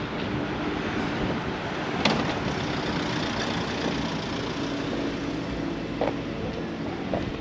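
Outdoor street background of road traffic, with a vehicle engine running steadily. A few short sharp knocks come through about two seconds in and again near the end.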